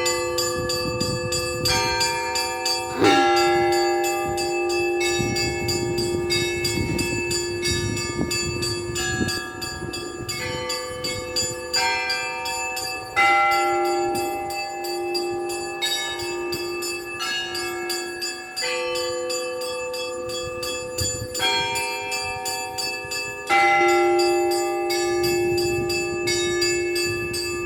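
Russian church bell ringing: small bells chime rapidly over the sustained ring of the bells, with a heavier bell struck every few seconds.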